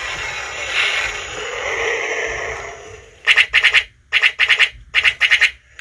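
Electronic sound effects from a 1995 Tonka X-Wing toy's sound module: a rushing engine noise for about three seconds, then several quick bursts of rapid laser-cannon fire. The electronics are working again now that the corrosion has been cleaned off the switch.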